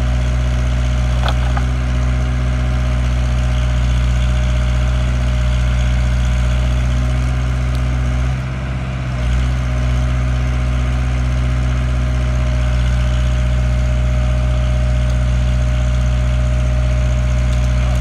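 Engine of a grapple-saw crane truck running steadily, powering the boom as it holds a tree trunk, with a brief dip in level about halfway through.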